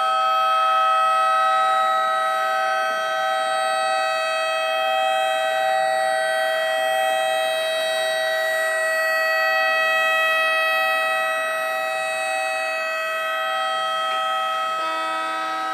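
Homemade electronic tornado siren, a 555-timer tone generator driving an amplifier and speaker on a rotator motor, sounding a steady multi-tone wail that slowly swells and fades in loudness. Near the end a new lower tone joins in.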